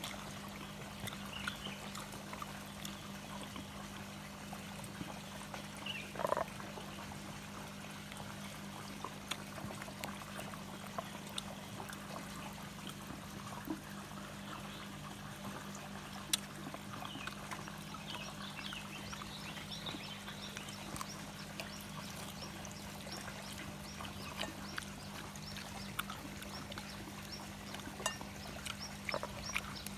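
Fish-pond ambience: water trickling under a steady low hum, with scattered short chirps and animal calls, one a little louder about six seconds in.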